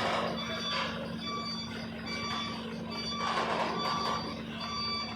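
A vehicle's reversing warning beeper sounding short repeated beeps, about two a second, over the steady low hum of a running engine and swells of rumbling noise.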